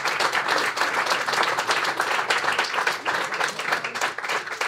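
Crowd applauding, a dense patter of many hands clapping that eases slightly near the end.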